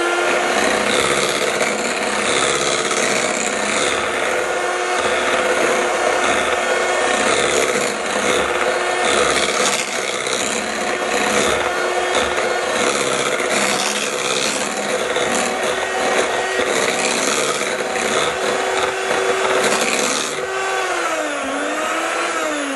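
A small electric kitchen appliance motor, such as a mixer or blender, running steadily with a constant hum and a rasping edge; its pitch wavers up and down near the end.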